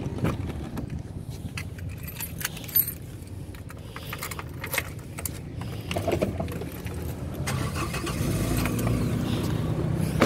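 Car door latch clicks and rattles as the door is opened, over a steady low rumble. From about eight seconds in the engine cranks and catches, running on injector cleaner pushed into the fuel rail with the fuel pump disabled.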